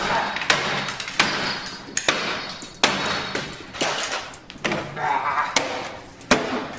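A rapid series of sudden crash-like hits, about one every two-thirds of a second, each followed by a short fading wash.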